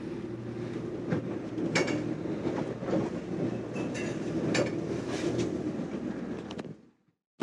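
Inside a sailing catamaran's saloon while underway in a choppy sea: a steady rumble of the moving boat, with irregular clicks, knocks and rattles from loose fittings and gear as the hull is tossed about. The sound cuts off abruptly near the end.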